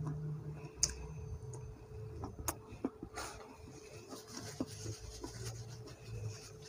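A person chewing a mouthful of food with her mouth closed, with a few short sharp clicks scattered through.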